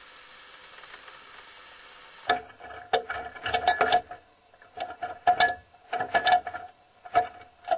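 Tiger shark biting an underwater camera rig: a steady hiss, then from about two seconds in a run of sharp knocks and crunches in clusters, each with a brief ringing tone, as teeth strike and grind on the camera housing and pole.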